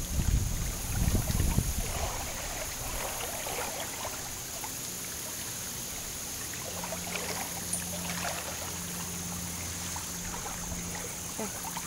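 Wind buffeting the microphone for the first couple of seconds, then steady outdoor background noise with faint crackles and a faint low hum coming in about halfway through.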